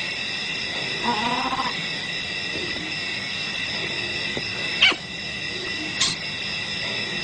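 Leopard giving a short pulsing growl about a second in, over a steady chorus of night insects. Two sharp clicks come a little over a second apart later on.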